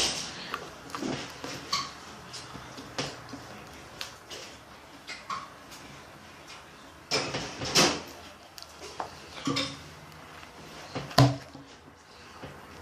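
Scattered knocks, clicks and clatters of things being handled, with louder knocks about seven to eight seconds in and again about eleven seconds in.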